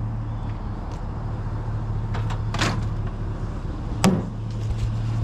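Steady low hum of a running vehicle, with a brief scuffing noise about two and a half seconds in and a single sharp knock, like a door shutting, about four seconds in.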